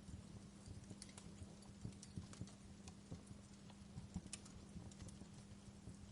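Campfire crackling: irregular small snaps and pops from the burning wood, a few sharper ones standing out, over a faint steady low hum.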